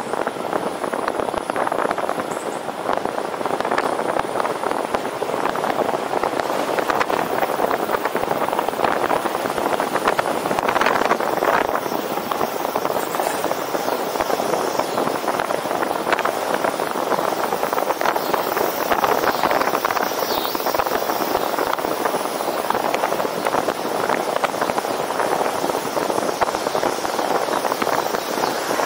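Steady wind rush buffeting the microphone of a camera carried on a road bicycle riding at speed.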